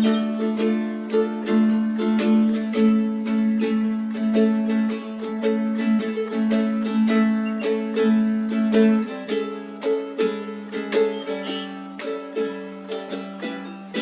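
Music played on a plucked string instrument: a steady run of picked notes over held chords.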